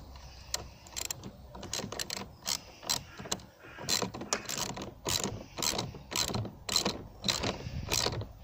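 Socket ratchet clicking in short repeated strokes as a 10mm battery terminal clamp nut is worked. The clicking is faint at first, then comes in steady strokes from about halfway through.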